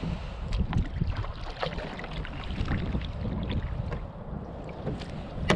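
Wind rumbling on the microphone aboard a kayak on the water, with scattered light knocks and clicks and a sharper knock near the end.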